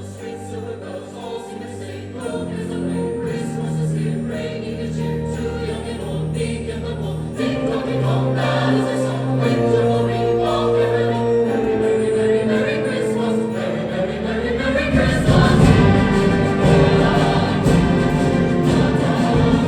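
Choir singing with instrumental accompaniment, the music building and growing fuller and louder about fifteen seconds in.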